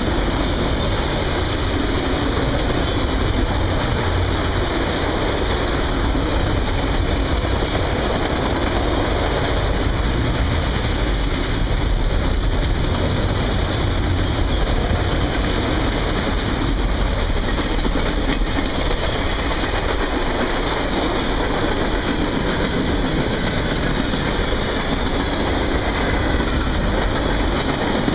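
Cars of a CSX mixed freight train (autoracks, then a tank car) rolling past at trackside: loud, steady rolling noise of steel wheels on the rails.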